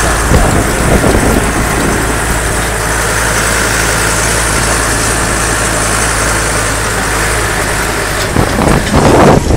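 Deutz tractor's diesel engine running steadily as the tractor drives along, heard from inside the cab, with a louder, rougher stretch near the end.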